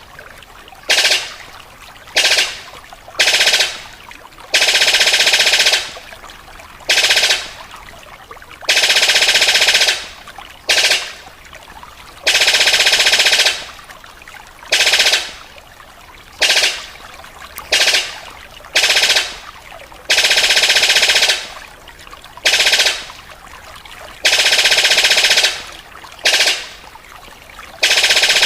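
Paruh sabit bird giving its rapid, rifle-like rattling call over and over, in loud bursts from a fraction of a second to about a second and a half long with short gaps between.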